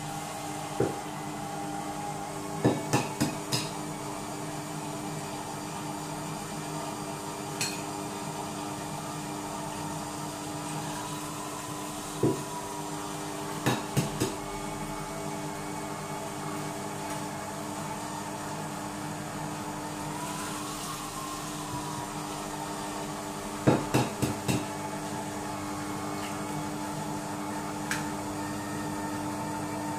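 Monsieur Cuisine Connect food processor's motor running with a steady hum at speed 4, mixing choux dough. Over it come several clusters of sharp taps and knocks as eggs are cracked into a glass cup and the shells put into a ceramic bowl, the loudest a group of four about two-thirds of the way through.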